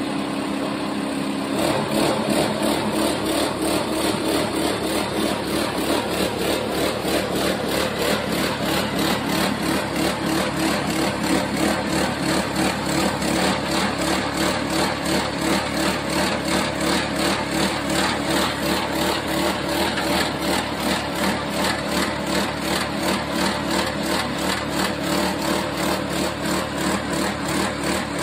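Silage press machine running steadily, its engine-driven mechanism giving an even, rhythmic pulsing beat; the sound thickens about a second and a half in.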